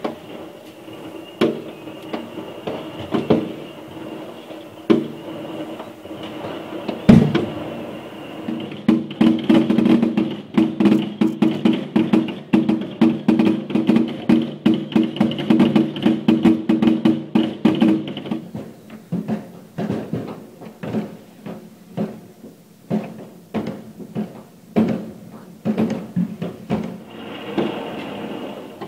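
Consumer fireworks going off: scattered sharp bangs of bursting shells, one loud bang about seven seconds in, then a dense run of rapid crackling bangs lasting about ten seconds, and more scattered bangs after it.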